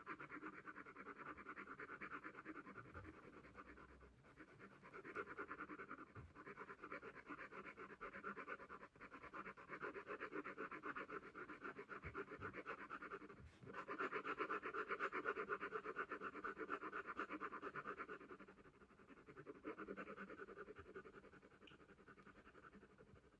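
HB graphite pencil shading on hot-pressed drawing paper, a faint scratching of rapid short back-and-forth strokes in stretches of a few seconds with brief pauses, as a light even layer of tone is laid down.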